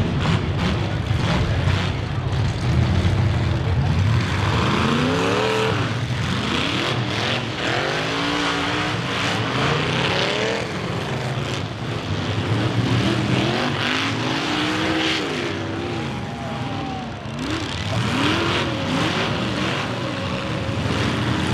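Several demolition derby cars' engines revving hard and dropping back, over and over and overlapping, on top of a steady low engine rumble. Occasional bangs of cars colliding are mixed in.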